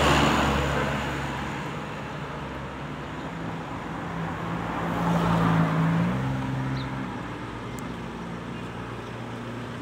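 Street traffic: a steady engine hum with cars passing, one swelling past at the start and another about five seconds in.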